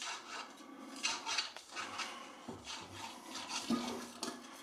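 A thin wooden stick scraping and poking inside a plastic funnel in irregular strokes, clearing lemon pulp that is blocking the funnel's neck.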